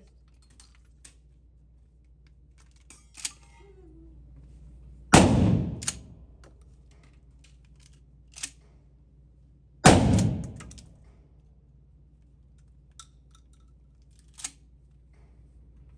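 Shotgun firing slugs: two loud shots about five seconds apart, each followed by a long fading echo, with a few small metallic clicks and clacks from handling the gun in between.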